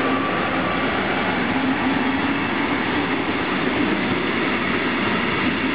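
Passenger coaches of a departing express train rolling past, a steady rumble and hiss of steel wheels on the rails.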